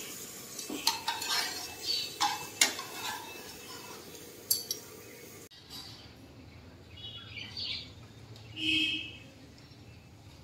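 Cutlery clinking and tapping against a dish in a quick run of clinks. About five seconds in, the sound cuts suddenly to a quieter outdoor background with a few short bird chirps.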